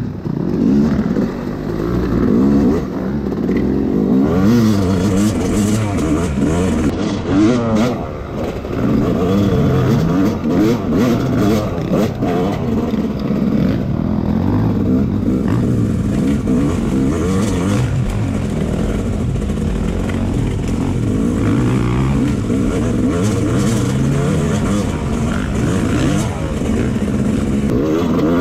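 Dirt bike engine revving up and down as it rides, its pitch rising and falling again and again, with scattered knocks and clatter.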